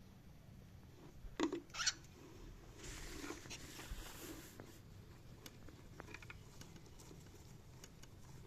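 Cockatiel sounds: two short, sharp chirps or clicks about a second and a half in, then soft scratching and rustling with a few faint squeaks.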